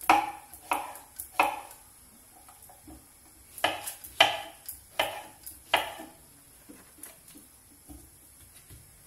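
Kitchen knife slicing a zucchini on a wooden chopping board: separate cuts, each ending in a sharp knock on the board. Three come in the first second and a half, then a run of five between about three and a half and six seconds in.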